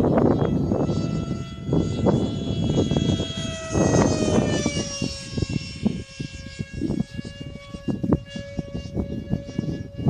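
Small aircraft engine droning overhead, a steady high-pitched tone that drops slightly in pitch about four to five seconds in. Gusts of wind buffet the microphone throughout.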